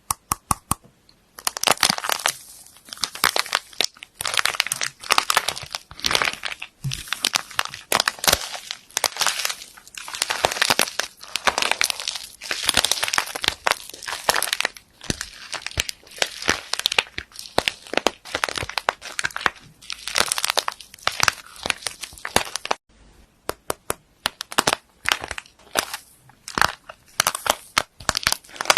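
Slime being squeezed and worked by hand, giving dense runs of crackles and sticky pops that come in waves. Near the end they thin out into separate clicks.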